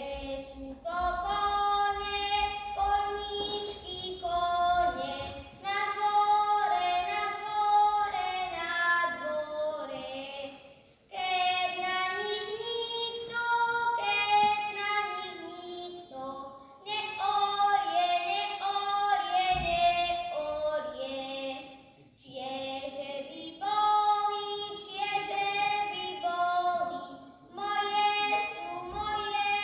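A child singing a Slovak folk song, holding notes in phrases of about five seconds with short breaks for breath between them.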